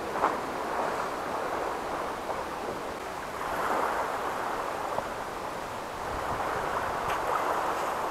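Small sea waves washing on a sandy shore, a steady rushing that swells and eases a couple of times.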